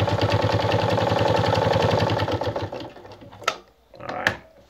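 Vintage Anker RZ sewing machine stitching a straight seam through four layers of denim: a rapid, even clatter of needle strokes that slows and stops just under three seconds in. Two sharp clicks follow.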